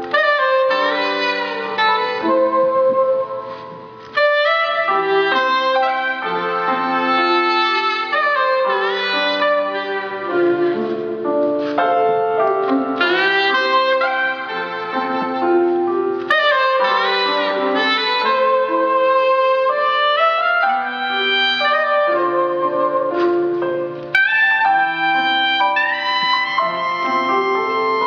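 Soprano saxophone playing a smooth jazz ballad melody over piano chords, with a brief pause about four seconds in.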